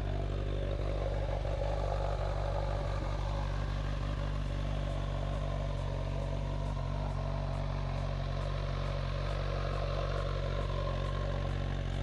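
2018 Honda CB1000R's inline-four engine idling steadily.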